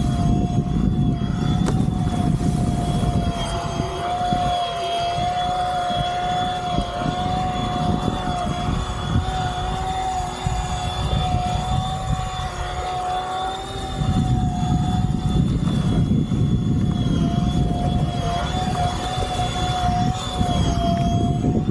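Flite Ultra eFoil's electric motor and propeller whining at a steady high pitch that wavers slightly as the rider turns. Under it runs a low rush of wind and water that eases for several seconds mid-way, then comes back.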